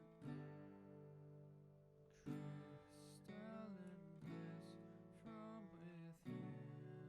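Quiet background music: an acoustic guitar strumming chords, with a fresh strum every couple of seconds that rings on between strokes.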